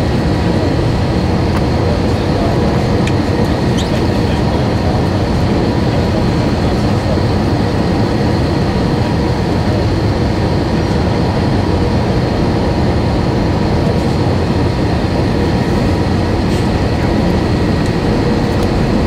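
Steady airliner cabin noise heard from a passenger seat: a constant engine and rushing roar with faint, thin steady whines above it.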